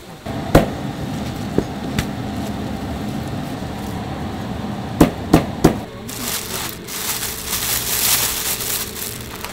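Cleaver chopping braised pig's trotters on a plastic cutting board: a few single chops, then three quick chops about five seconds in. From about six seconds, a thin black plastic bag rustles and crinkles.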